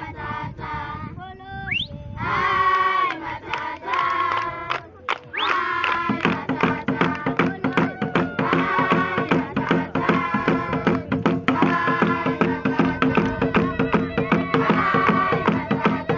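A group of children singing a traditional song; about six seconds in, fast rhythmic hand clapping and a beat join in under the continuing singing as the dance starts.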